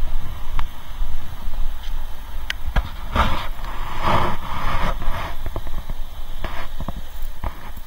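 City street traffic at a junction: cars driving past, one passing loudest from about three to five seconds in, over a steady low rumble, with scattered sharp clicks.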